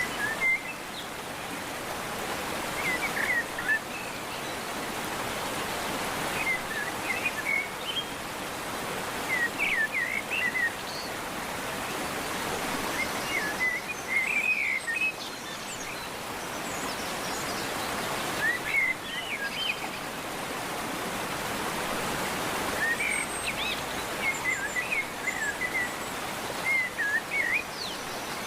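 A bird singing short phrases of quick chirps every few seconds over a steady rushing background noise.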